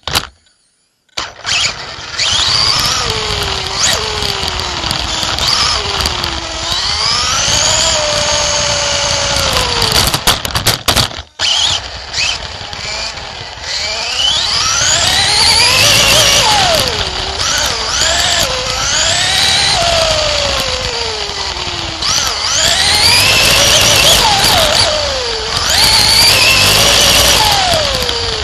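Race car engine heard from an in-car camera, revving up and falling back again and again as the car goes round the track, its pitch climbing and dropping every few seconds. The sound starts about a second in and cuts out briefly about eleven seconds in.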